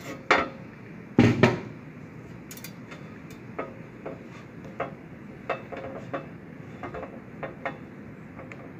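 Handling clatter from a dental articulator with its stone casts and a silicone putty index: a few sharp knocks, loudest about a second in, then scattered light clicks and taps.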